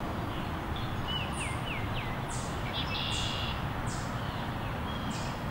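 Small songbirds calling over steady outdoor background noise: a few short falling whistles in quick succession, then a brief chattering call, with scattered high chips.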